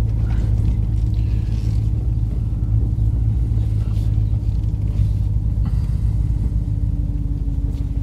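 Inside the cab of a 2020 Ram 1500 Rebel pickup while it is being driven: a steady low rumble of engine and road noise.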